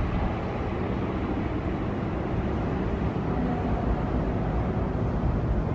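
Steady low rumble and hiss of a large sports hall's background noise, with no distinct strikes or voices standing out.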